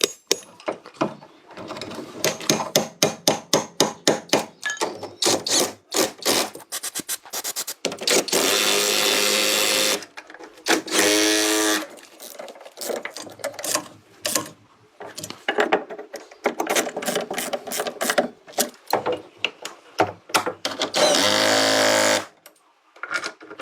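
A power tool running in three short bursts, its pitch wavering in the later two, between quick runs of taps and clicks from hand-tool work.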